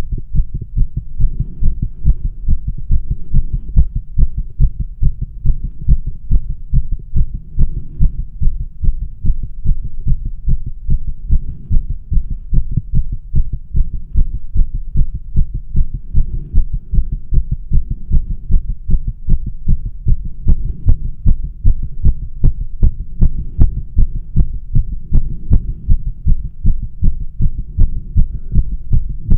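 Rapid heartbeat heard through a stethoscope microphone pressed to the chest: fast, even, hard lub-dub beats of a resting tachycardia, not brought on by exercise or stimulants.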